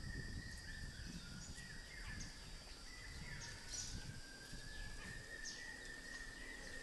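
Faint dry-forest ambience: birds giving repeated short falling chirps over a steady high insect drone.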